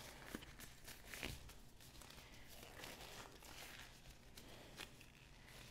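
Faint rustling and crinkling of thin disposable gloves being pulled on and worked over the hands, with a few soft clicks.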